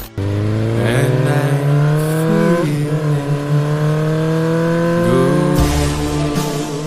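Motorcycle engine accelerating hard through the gears. The pitch climbs steadily, drops at an upshift about two and a half seconds in, climbs again, and drops at another shift about five and a half seconds in.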